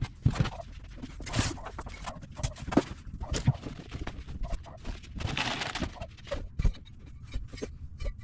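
Irregular knocks and clicks with short bursts of rustling, as of parts and packaging being handled.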